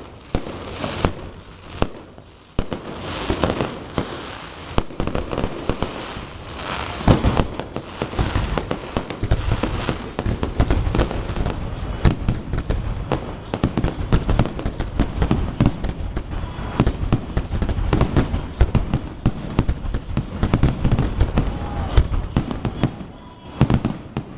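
Aerial fireworks display: shells bursting in rapid, overlapping bangs mixed with crackling stars. There is a brief lull about two seconds in, and the bangs come near-continuously from about eight seconds on.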